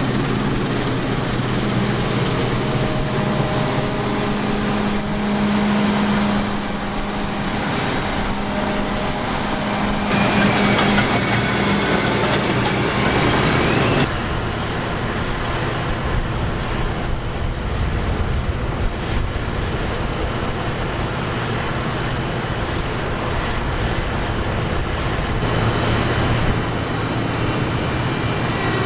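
Farm harvest machinery running steadily: combine harvester and tractor engines working. The sound shifts abruptly about a third of the way in and again about halfway through.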